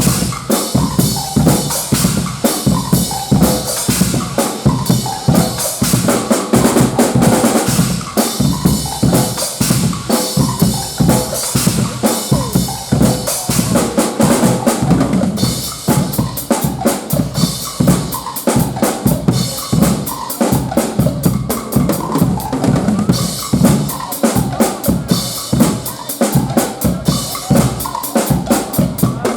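Guggenmusik band playing loud carnival music: a heavy drum section of bass drum, snare and cymbals beating a fast steady rhythm under brass.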